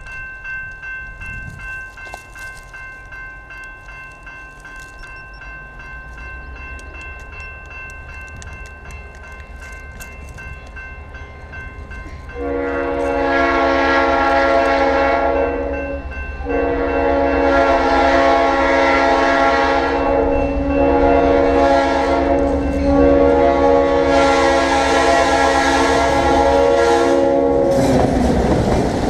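Grade crossing bell ringing steadily while a diesel locomotive's low engine rumble grows louder on its approach. About twelve seconds in the locomotive's horn sounds a series of long blasts with short breaks, stopping near the end as the train rolls over the crossing with a broad rumble of wheels.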